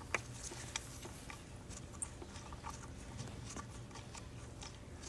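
Scattered light clicks and ticks of hands working small wires and connector parts, over a low steady hum.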